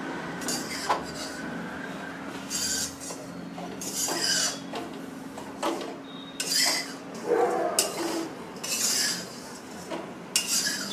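A metal spatula scraping and stirring grated coconut around an iron kadhai as it dry-roasts, in a series of irregular scraping strokes with a few sharp clinks of metal on the pan.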